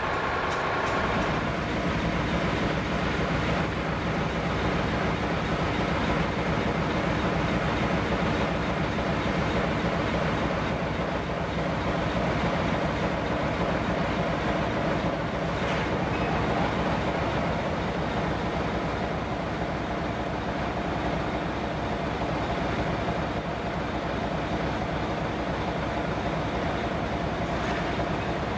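Diesel locomotive engine idling with a steady drone. A higher tone stops about a second in.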